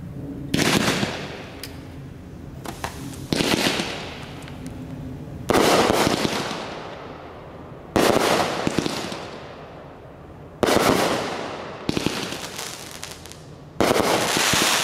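Loaded Gun 30-shot aerial firework cake firing: a sharp bang about every two to three seconds, seven in all, each trailing off in a fading rush of noise, with small pops between.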